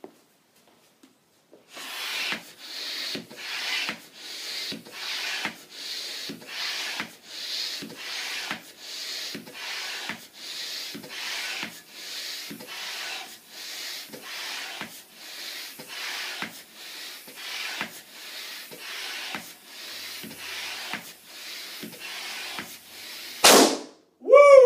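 A balloon pump being worked in steady strokes, each one a rasping hiss of air, a little under two strokes a second, as a balloon is inflated. Near the end the balloon bursts with one very loud pop, then a short cry.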